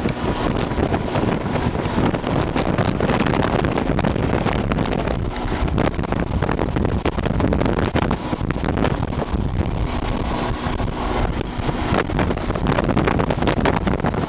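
Strong wind buffeting the microphone: a loud, continuous rushing noise with rapid crackles throughout.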